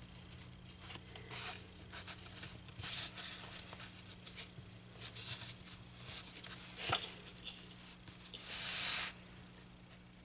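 Fabric rustling and scraping against a styrofoam block as it is folded tight and pinned, in irregular short strokes, with a sharp click about seven seconds in and a longer scrape a little after eight seconds.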